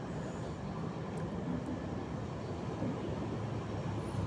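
Steady low rumble of background traffic.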